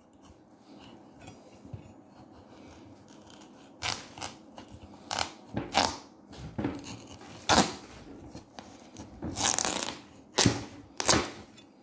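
Large kitchen knife cutting the top off a red kuri squash: after a quiet start, a run of short crunching cracks and rasps begins about four seconds in as the blade forces through the hard skin and flesh.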